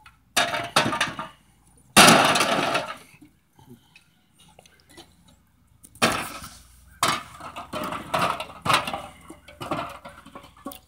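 Crushed aluminium soda cans clattering and crinkling against each other as they are picked up and dropped into a cardboard box, in a string of short bursts, the loudest about two seconds in.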